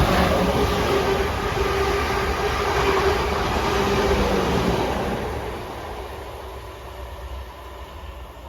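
Class 444 electric multiple unit passing by, a steady rumble with a hum running through it, fading away from about five seconds in.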